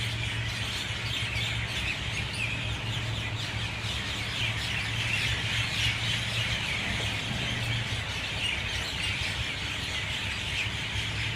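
Dawn chorus of many myna birds calling at once, a dense, unbroken mass of overlapping chattering calls at full loudness. A steady low hum runs underneath.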